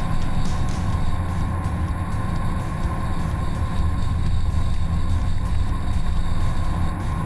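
Hummer SUV driving along a gravel mountain trail: a steady, low rumble from the engine and tyres, picked up by a camera mounted on the hood.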